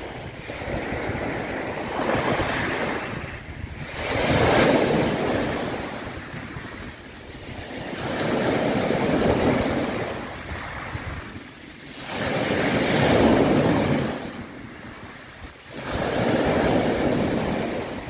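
Open-sea waves: a rushing wash of water that swells and fades again about every four seconds.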